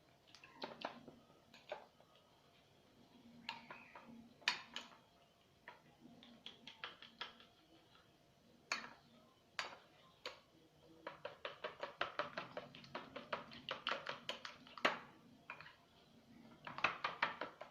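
A spoon stirring a mixture of honey and olive oil, clicking against the sides of its container. The clicks come in scattered taps, with quicker runs of about four or five a second a little past the middle and near the end.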